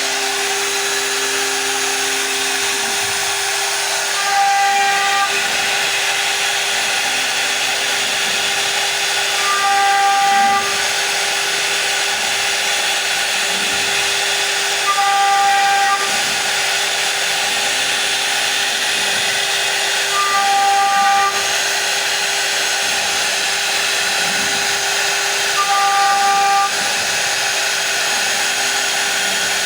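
CNC router spindle running at a steady high pitch while cutting wood, with a continuous hiss. About every five seconds a brief, louder, higher tone sounds for roughly a second.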